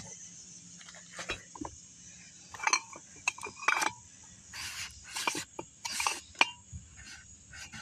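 Empty glass wine bottles clinking against each other as they are shifted in a cardboard box: about eight sharp, irregular clinks, some ringing briefly.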